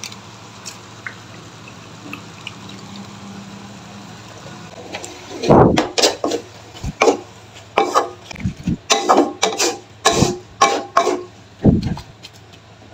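Black spatula stirring and tossing water spinach in a non-stick wok, starting about five seconds in as a run of loud, irregular scraping strokes, roughly two a second. Before that only a low steady hum and a few faint ticks.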